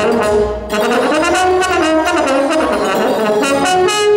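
French horn playing a melodic line note to note, with a short break about half a second in.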